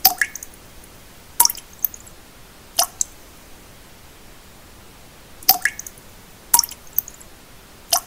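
Water drops falling one at a time into still water, each a sharp plop, several followed by a smaller second drip, at uneven intervals of one to three seconds. A steady pink-noise hiss lies underneath.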